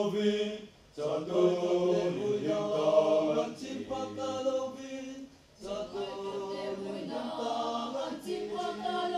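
Mixed choir of men and women singing under a conductor, phrase by phrase, with brief pauses about a second in and just after five seconds.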